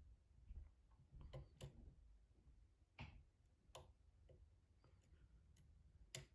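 Faint, irregular clicks of a lock pick and tension wrench working the pins of a pin-tumbler challenge lock, a few sharper clicks as pins move.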